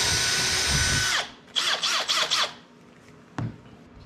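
Cordless drill running at full speed while drilling through the mount plate into the boat's fiberglass deck, then released about a second in so its whine winds down, followed by several short trigger bursts that rise and fall in pitch. A single click near the end.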